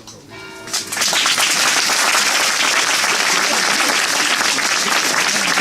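Audience applause: many people clapping out of step. It swells up in the first second, then holds as dense, loud, steady clapping.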